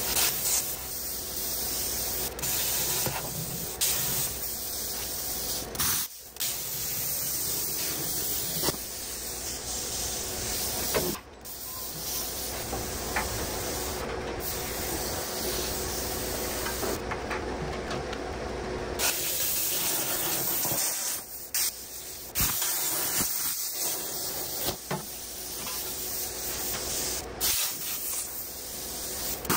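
Plasma cutter cutting steel: a steady, loud hiss of the arc and air jet that stops for a moment several times before carrying on.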